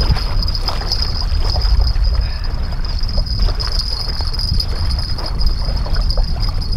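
Wind buffeting the microphone in a steady low rumble, with small waves lapping on a gravel shore and a steady high-pitched whine above it.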